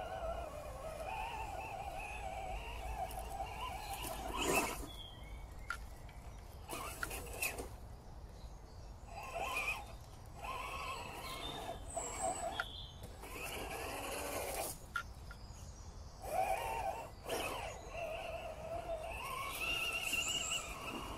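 Electric motor and gear drivetrain of an MST CMX RC crawler whining as it crawls over dirt and rock. The pitch wavers with the throttle, and there are several sharp knocks along the way.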